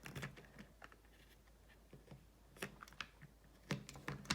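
Faint scattered clicks and taps of plastic toy-train parts being handled and set on the track, with a cluster of them near the end.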